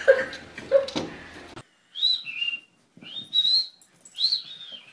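Three high whistled notes, each sliding up and then down, about a second apart in the second half. Before them comes a short stretch of voice and noise that cuts off abruptly.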